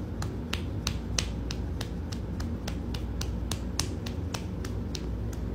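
Sharp clicks in an even beat, about three a second, over a low steady hum.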